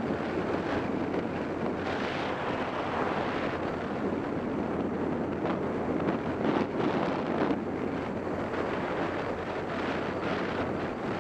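Wind buffeting the microphone of a camera on a moving motorcycle, a steady rushing that swells and dips, with the motorcycle's engine and road noise underneath.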